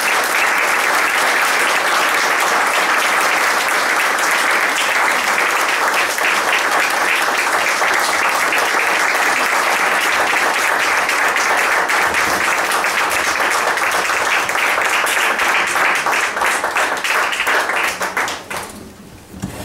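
A small audience applauding steadily after a talk, thinning out into a few scattered claps near the end.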